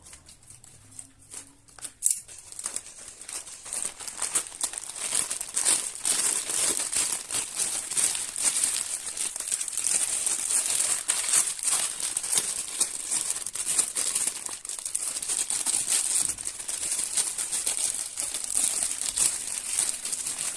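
Packaging of a new dog chest harness being crinkled and rustled as it is unwrapped: a dense run of crackles that starts about two seconds in and stops abruptly near the end.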